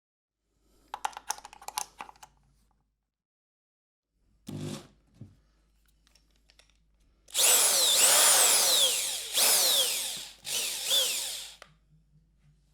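Electric screwdriver: a few light clicks and rattles, a short buzz, then three bursts of the motor running, each with a whine that rises as it spins up and falls as it winds down.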